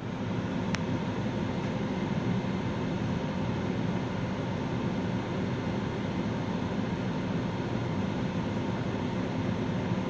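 CEM Discover-S microwave digestion system running a heating ramp at 200 W: a steady mechanical hum and whir. A single faint tick comes just under a second in.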